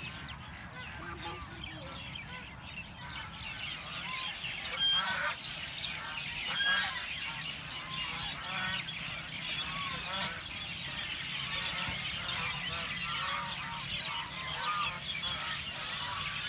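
Many small birds, such as house sparrows, chirping at once in a dense, overlapping chorus, with louder honking waterfowl calls about five and seven seconds in.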